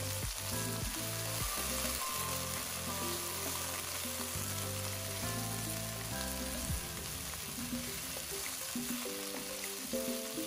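Saffron milk cap mushrooms and diced onion sizzling in olive oil in a pan, stirred with a wooden spatula. Background music with held notes plays under the sizzle.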